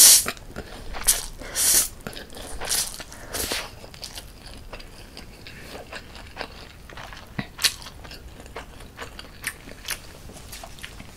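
Close-miked eating of cold spicy mixed noodles: a few loud slurps in the first few seconds, then wet chewing with small mouth clicks.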